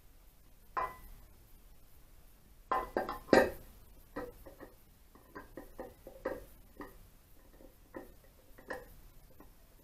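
Metal clinks and knocks as the crankcase halves of an Ariel motorcycle engine are handled and fitted together by hand. The loudest clatter comes about three seconds in, followed by a run of lighter, irregular taps and clicks.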